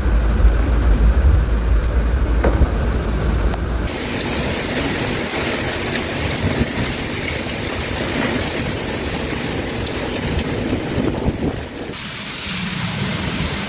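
Storm sound from amateur footage: wind buffeting the microphone with a deep rumble, then after a sudden cut about four seconds in a loud, steady rushing noise of heavy rain and wind. The sound changes again at another cut near the end.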